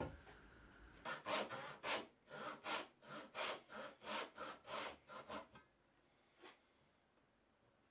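A hand tool working wood in about ten quick back-and-forth strokes, roughly two a second, starting about a second in and stopping after about four and a half seconds, with one faint last stroke after that.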